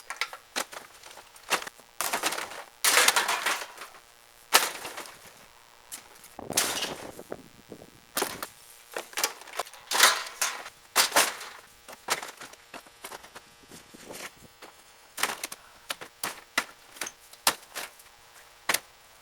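Irregular sharp knocks and clanks of metal being struck, with a few longer scraping stretches, typical of working on a rusty car body during a teardown.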